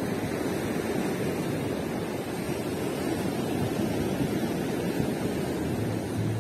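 Steady rushing of ocean surf mixed with wind on the microphone.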